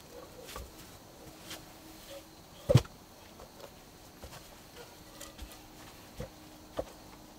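Footsteps in straw sandals on packed earth and log steps, with scattered soft knocks and one heavy thump about three seconds in.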